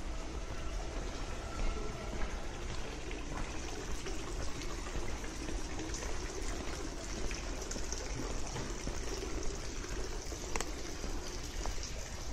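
Steady splashing rush of running or falling water, with a couple of short clicks near the end.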